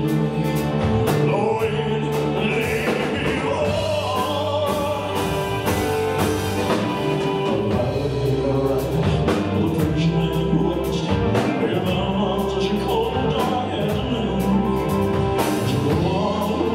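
A male singer performing a ballad with a live band of electric bass, keyboards and drum kit, with drum and cymbal strikes recurring throughout.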